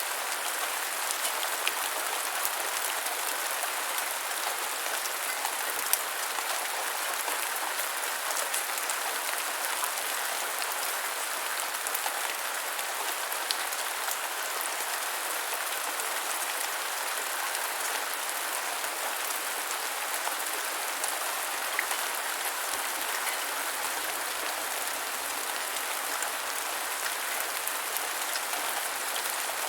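Steady rain falling on the ground, an even patter with now and then a single louder drop.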